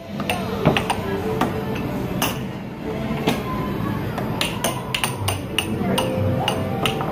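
Air hockey puck and mallets clacking on an Air FX table during a rally: repeated sharp knocks at an uneven pace, coming faster in the second half, over arcade music.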